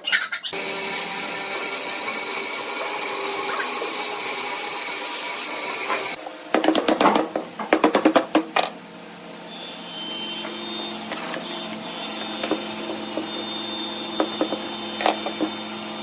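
Woodturning lathe spinning a block of bamboo chopsticks set in epoxy, with a steady hiss of the tool cutting or sanding the piece. About six seconds in the hiss stops and a quick run of clattering knocks follows, then the lathe runs on with a quieter steady hum.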